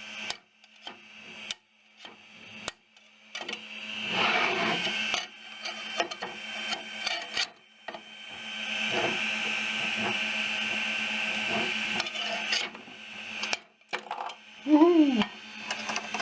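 Spatula scraping a finished 3D print off the printer's bed plate, with clicks and knocks and stretches of scraping, the longest lasting about four seconds in the second half. A short falling pitched sound stands out as the loudest moment near the end.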